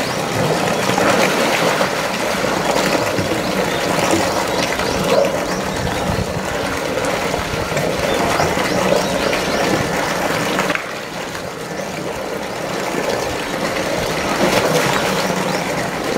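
Steady churning and splashing of pool water as two polar bears wrestle and swim together.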